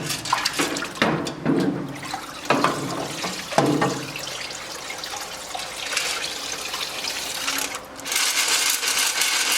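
Degreaser sloshing and running in a parts washer tank as small metal spoke nipples are lifted out, with several clinks and knocks in the first few seconds. About eight seconds in, a louder rush of flowing liquid starts.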